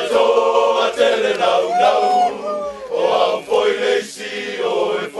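A group of Samoan soldiers, all men's voices, singing together in a chant-like Samoan song, in short phrases with brief breaks between them.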